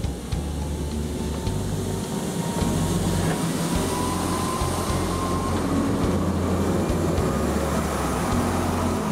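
Electric rack railcar of the Drachenfels Railway running past close by: a steady low rumble from the car on the rack track, with a faint whine that rises a little in pitch over the first few seconds. It grows a little louder about two and a half seconds in.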